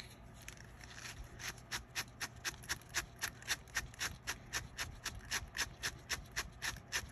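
A brush stroked quickly and repeatedly over yarn strands, about four short scratchy strokes a second, starting about a second in. The brushing fluffs the angorita yarn into fur.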